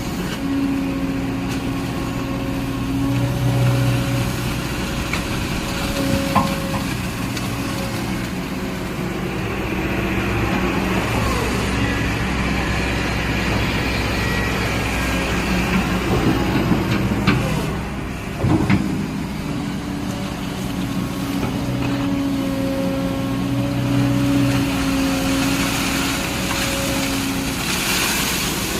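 Kobelco excavator's diesel engine running under changing load, its hum rising and easing as it works. A couple of sharp knocks come about two-thirds of the way through.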